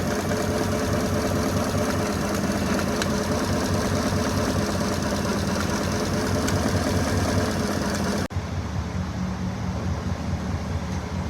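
2016 GMC Sierra V8 idling unevenly with a misfire on cylinder 7, where one valve is not opening. About eight seconds in the sound cuts off abruptly and a quieter, duller steady engine hum takes over.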